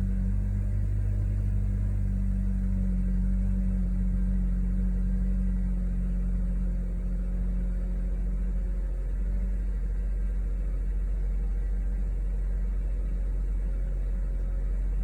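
2012 Honda Accord's four-cylinder engine idling steadily after a cold start, without the grinding noise it sometimes makes on cold start-up. The idle note eases a little about halfway through.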